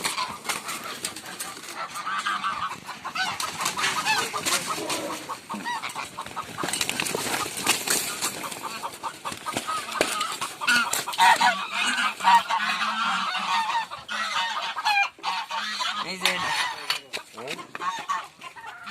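Domestic geese honking over one another, many calls on top of each other without pause, mixed with scuffling knocks, as a goose is being caught in a pen.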